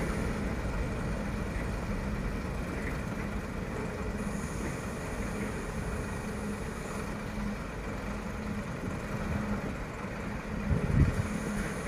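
Diesel-hauled freight train rolling along the track, a steady rumble of wagons and engine hum. A louder low rumble swells briefly near the end.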